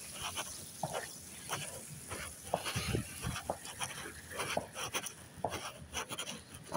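A Belgian Malinois–American Akita cross dog panting and snuffling: a run of short, irregular breaths and sniffs.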